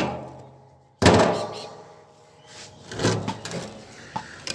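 A single heavy metal clunk about a second in, dying away slowly, as an aircon compressor's motor stator is levered loose inside its steel casing with a screwdriver. Quieter knocks and scrapes of metal on metal follow as the stator is worked outward.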